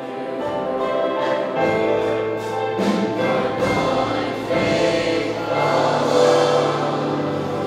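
A large group of voices singing a slow song together, with long held notes.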